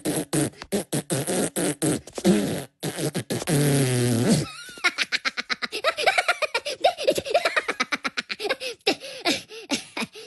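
Cartoon Minion voices laughing and giggling in rapid, choppy bursts, with a longer buzzing vocal sound from about three to four and a half seconds in.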